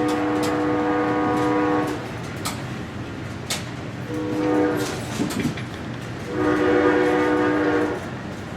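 A train horn sounds three times (a long blast, a short one, then another long one) over the steady rumble and clatter of a moving train's wheels on the track.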